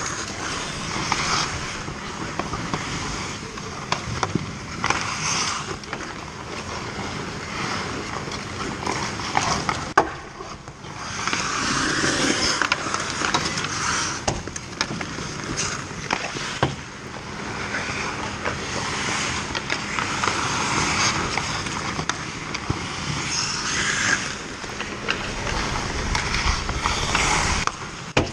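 Ice hockey skates scraping and carving on the ice, swelling as players skate hard near the net. Sharp clacks of sticks and puck come through now and then, with a loud one about ten seconds in.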